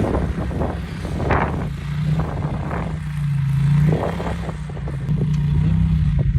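Side-by-side UTV engine running and revving on and off, swelling and easing in loudness, with clatter from the machine over rough ground.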